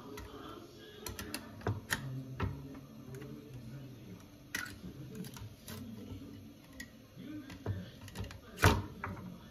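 Scattered clicks and knocks from a flat stainless-steel garlic grater and its plastic pusher cup being handled and set down on a cutting board, with one louder knock near the end.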